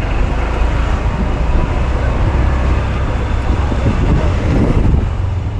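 Steady road and traffic noise of riding through town traffic: a dense low rumble of engines and moving air, swelling slightly about four to five seconds in.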